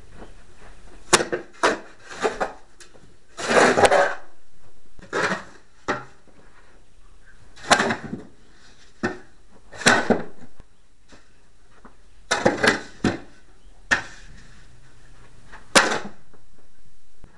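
Snow shovel scraping and scooping snow into a tractor's steel front-loader snow bucket, in about a dozen short strokes at irregular intervals.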